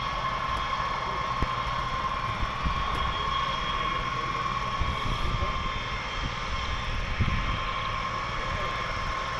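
Distant B-52 bomber's eight turbofan jet engines running with a steady high whine over a low rumble. Wind buffets the microphone with irregular low thumps.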